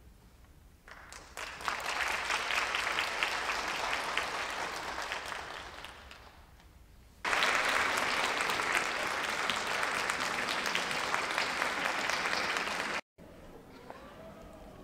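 Audience clapping. The applause builds about a second in and fades away, then after a cut comes back at full strength and stops abruptly near the end, leaving quieter room sound.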